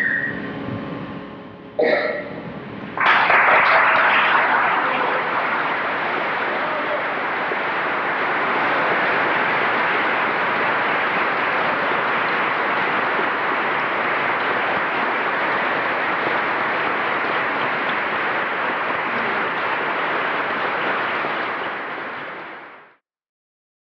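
The last notes of a grand piano dying away, then a short sharp sound about two seconds in and an audience breaking into applause about three seconds in. The applause keeps up steadily for the piece's close and cuts off suddenly near the end.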